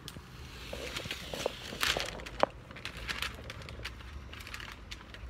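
Masking paper and tape being peeled off a painted surfboard, crinkling and tearing with sharp crackles, loudest about halfway through.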